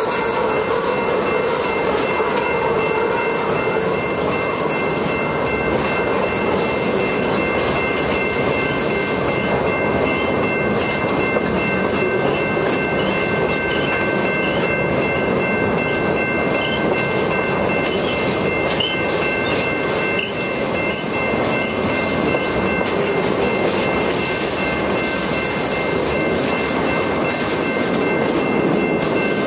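Rail train of flatcars with rail racks rolling past on the track: a steady wheel-on-rail rumble with faint clicking, and a steady high-pitched squeal of several tones held over it.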